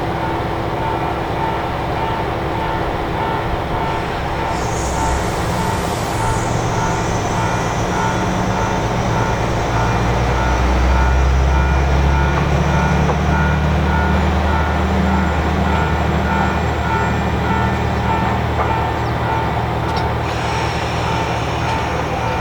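Diesel railcar engine running, its low note rising and growing louder through the middle as it revs up. A short high hiss comes about five seconds in.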